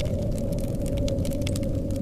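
Blizzard wind blowing steadily and low, with a wood fire in a fireplace crackling over it in many small, irregular pops.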